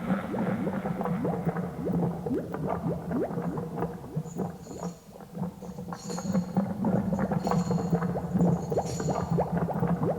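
Spooky Halloween sound effect: a dense bubbling, gurgling sound of many quick rising blips over a low steady hum. From about four seconds in, high tinkling, ringing tones come in and out.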